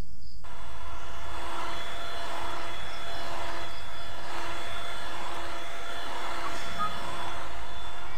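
Electric hand mixer running, its beaters whisking eggs and sugar in a metal bowl toward the thick ribbon stage. A steady whir that starts about half a second in and holds even.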